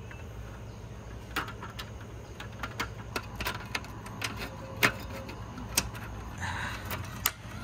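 A string of irregular sharp clicks and knocks, the loudest about five seconds in, over a steady low hum.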